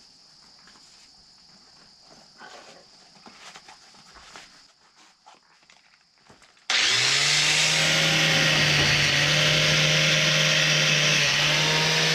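Quiet rustling at first, then about two-thirds of the way in a corded angle grinder fitted with a wire wheel switches on, spins up quickly and runs loud and steady.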